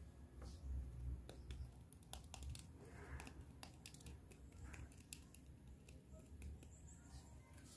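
Faint, scattered light clicks and taps of a plastic toy hairbrush being picked up and handled, mostly in the middle, over a low steady hum.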